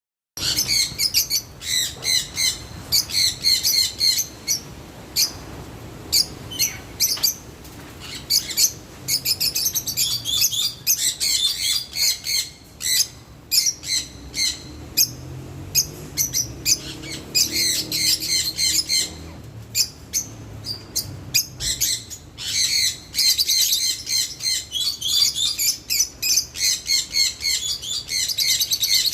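Lutino peach-faced lovebirds chirping and chattering, in rapid runs of sharp, high-pitched chirps with short pauses between them.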